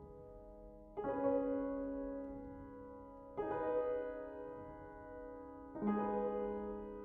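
Slow background piano music: a chord struck three times, about two and a half seconds apart, each ringing out and fading before the next.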